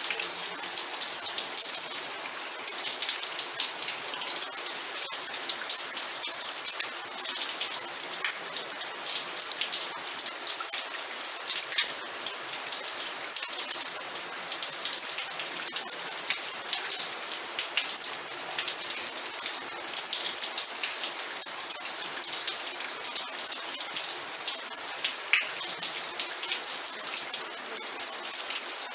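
Steady rain falling on a surface, a dense patter of individual drops over an even hiss.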